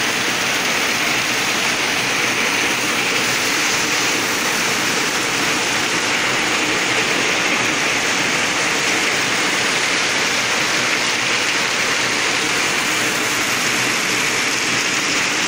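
Heavy rain pouring down steadily on banana plants and trees: a loud, even hiss that never lets up.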